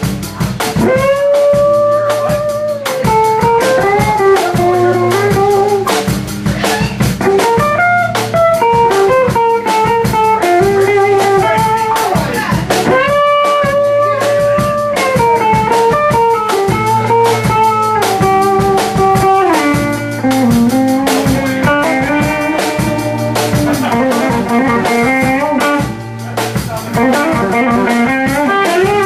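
Live blues-rock band playing: a lead electric guitar line of held notes with bends and vibrato over electric bass and a drum kit keeping a steady beat.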